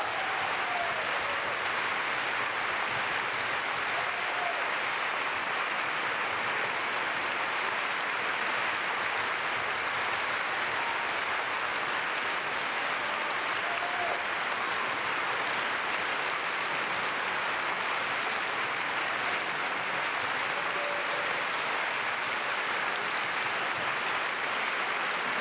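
Large concert-hall audience applauding steadily.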